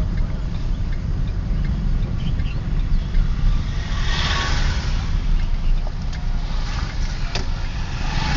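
Steady low rumble of a vehicle driving, engine and road noise together, with a hissing swell about halfway through.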